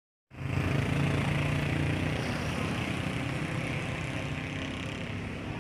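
A vehicle engine running with a low hum that slowly fades.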